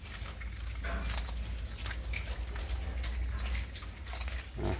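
Small Indian civet biting and chewing a whole raw fish: a scatter of short snapping, crunching clicks over a low steady hum.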